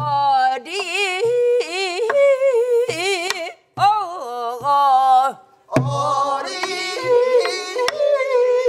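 A woman sings a Korean Namdo folk song in the traditional style, with a wide, shaking vibrato. She beats her own rhythm on a buk barrel drum: low thumps with sharp stick clicks, roughly once a second. The phrases break off with short pauses.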